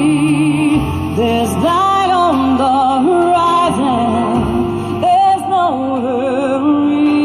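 Music with a singing voice: long held, gliding notes with a wavering vibrato over a steady accompaniment, with no clear words.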